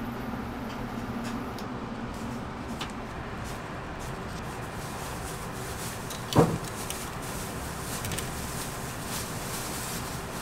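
Kitchen sounds of glazing and topping a donut: a steady background hum, one loud knock about six seconds in, and faint light ticks of toppings being sprinkled onto the chocolate-glazed donut near the end.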